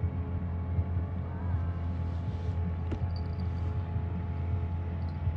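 Steady low engine drone. From about three seconds in, faint high insect chirping repeats several times a second.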